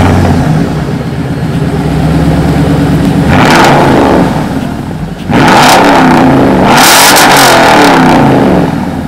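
2014 Toyota Tundra's V8 through a Borla cat-back exhaust with Carven R-Series mufflers, just started and running with a deep steady note. It is revved about three seconds in, and again harder from about five seconds, the pitch rising and falling several times before dropping back near the end.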